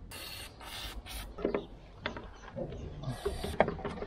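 Handling noise at a tractor's rusty steel dash panel: rustling and rubbing in the first second, then scattered light clicks and knocks as hands work at the panel.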